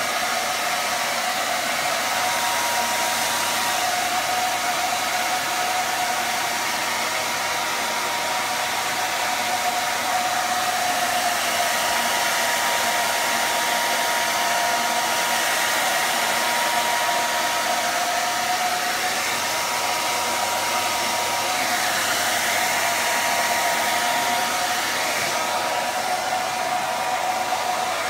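Philips hair dryer running steadily, blowing hot air along the edge of a vinyl-wrapped cupboard door to soften the covering's glue: an even rush of air with a steady whine.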